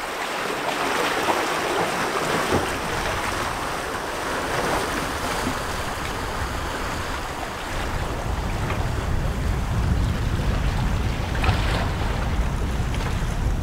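Sea waves washing on a rocky shore with steady wind; from about eight seconds in, wind buffeting the microphone adds a low rumble.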